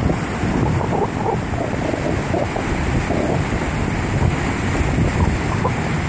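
Wind blowing on the microphone over steady ocean surf.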